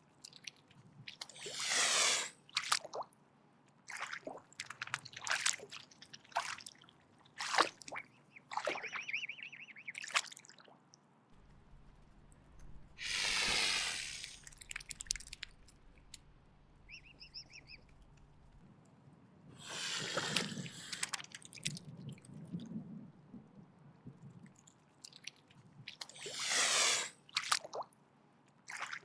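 Mute swan hissing in four long breathy hisses of about a second each, a defensive threat, with short wet clicks and smacks between them.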